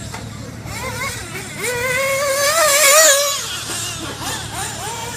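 O.S. .21 nitro engine of an X-Ray RC buggy screaming at high revs, its pitch wavering up and down with the throttle. It grows louder about a second and a half in, is loudest around three seconds as the buggy passes close, then fades.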